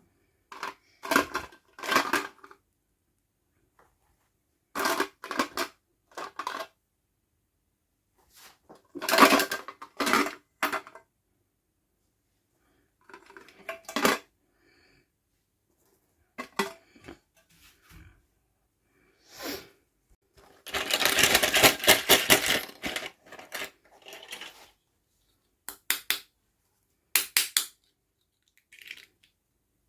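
Small plastic toy pieces and packaging being handled at close range: short bursts of clicking and clattering every second or two, with a longer stretch of dense rustling and clattering about 21 seconds in.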